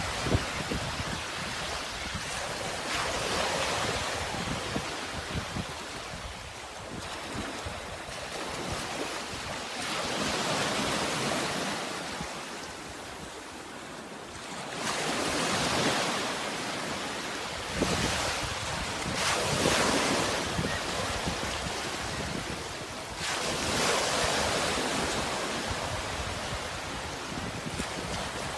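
Sea waves washing in and breaking, the surge rising and falling every few seconds.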